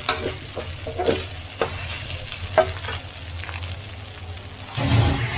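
Duck and holy basil stir-fried with rice in a hot pan: sizzling, with a spatula scraping and clicking against the pan several times. A louder burst of noise comes near the end.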